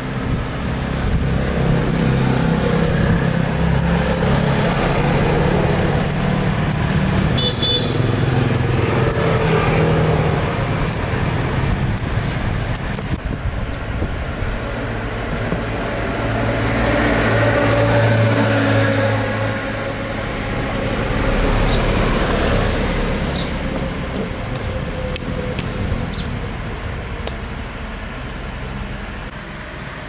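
Road traffic: motor vehicles running and passing, with a hum that swells and fades about 18 seconds in.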